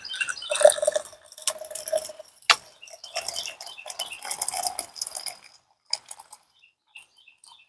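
Metal camp cookware clinking and rattling, with a short ringing tone in the first two seconds. The clatter stops about five and a half seconds in, and a few light ticks follow.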